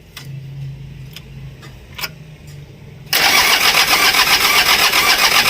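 Mitsubishi L300 diesel engine being started: a loud, even, rhythmic clatter begins abruptly about three seconds in and keeps going. It is a test start after new timing belt, nozzle tips, glow plugs, fuel filter and injection-pump calibration meant to cure hard starting.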